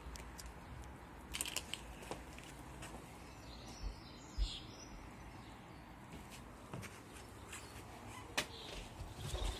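Outdoor background: a low steady rumble with a few short bird chirps about four seconds in, and several sharp clicks and knocks.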